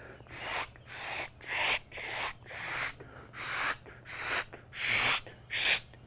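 A person pishing: a run of about ten hissed "pshhht" bursts, roughly two a second, imitating the scolding alarm songbirds give when they have spotted a predator such as a cat.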